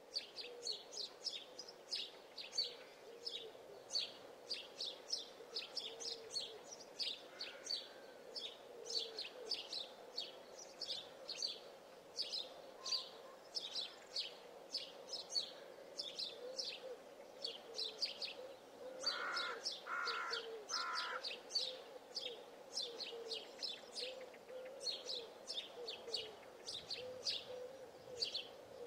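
Birds chirping: a continuous run of short, high chirps, two or three a second, with three lower notes a little past the middle, over a steady low hum.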